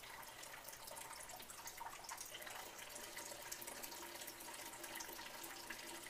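Water trickling and dripping steadily from a Kalk King kalkwasser doser's top-off line into the aquarium, faint, with a faint steady hum underneath. The float switch is held on, so the doser keeps delivering water continuously toward its 300 ml safety limit.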